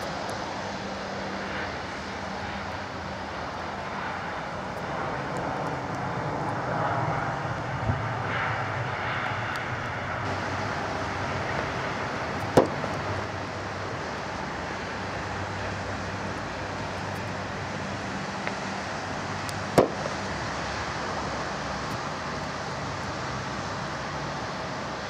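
Distant jet engine noise from a Boeing 737-700's CFM56 engines as it rolls out along the runway after landing. It is a steady rush that swells a little a few seconds in. Two sharp clicks come near the middle, about seven seconds apart, and are louder than the engine noise.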